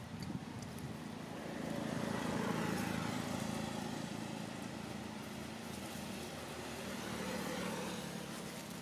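A motor vehicle passing on the road. Its engine and tyre noise builds to its loudest about two seconds in, then fades slowly, with a smaller swell near the end.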